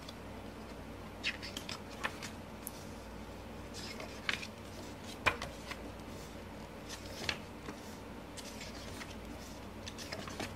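Paper pages of an album photobook being turned and handled by hand: scattered crisp rustles and soft taps, the sharpest about five seconds in, over a steady low background hum.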